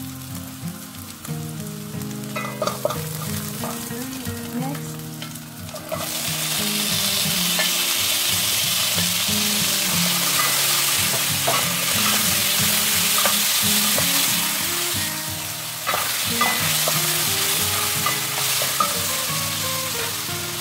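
Shallots, garlic and ginger sizzling in hot oil in a pan, stirred with a wooden spatula that clicks and scrapes against it. About six seconds in the sizzling grows much louder and stays loud as tomato slices go into the pan. Soft background music plays underneath.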